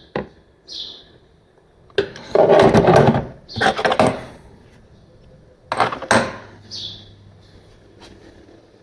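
Knocks and clatter of hard objects being handled, with three louder scraping, rattling bursts in the middle and a few short hisses.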